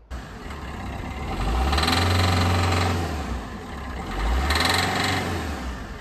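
Peugeot 1.3 HDi four-cylinder diesel engine running cold with a knocking rattle, revved up twice. The rattle on cold start is diesel knock, traced to the injectors with a leak-off test.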